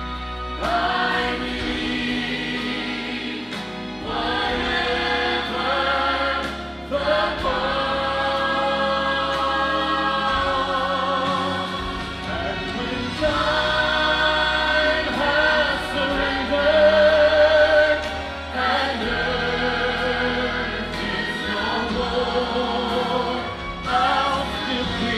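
Choir singing a gospel song over instrumental accompaniment, in phrases of long held notes with vibrato.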